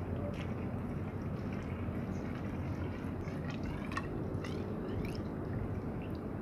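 Water poured in a thin stream from a clear plastic jar into the open end of a hose, trickling with scattered small drips and splashes, filling the hose to prime it for siphoning. A steady low background rumble runs underneath.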